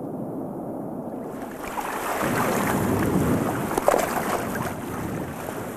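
Muffled underwater rumble that gives way, about a second in, to splashing, lapping water as a clawless otter moves through the shallows with a crab, with a few sharp crackles near the middle.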